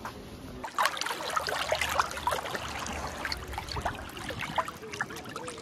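Seawater lapping and splashing close against a phone held at the water's surface, a dense run of small irregular splashes and drips starting about a second in.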